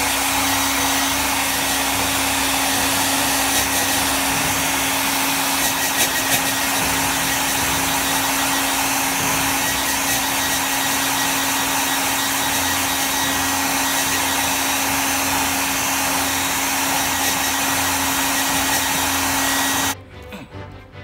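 Hair dryer blowing continuously, an even rushing noise with a steady motor hum, loud throughout and switched off abruptly near the end.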